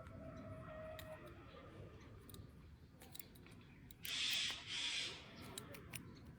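A young bird pecking at food, making small clicks and taps, with two short hissing bursts about four seconds in.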